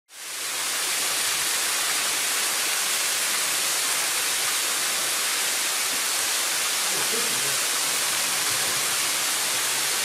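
Steady rushing hiss of a tall waterfall, with Cane Creek falling about 60 feet over a shale and sandstone ledge. The sound fades in quickly at the start and then holds even.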